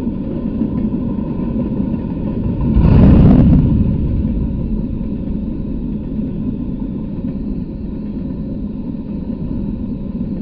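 Freight train of open-top hopper cars rolling past: a steady rumble of wheels on rail, swelling louder for about a second around three seconds in.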